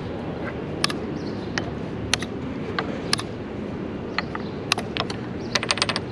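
Plastic chess pieces clacking down on the board and a digital chess clock's buttons being hit during fast blitz play: single sharp clicks every second or so, and a quick run of clicks near the end. A steady low hum of city background noise runs underneath.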